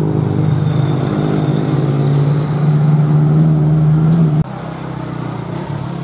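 Heavy diesel engine of a tour bus running close by on a climbing road, its pitch rising slightly as it pulls. It cuts off abruptly about four seconds in, leaving a quieter, steadier engine sound.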